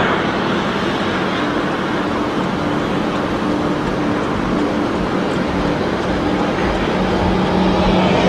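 Steady rumble and hiss of a vehicle driving on the road, with a faint low engine hum.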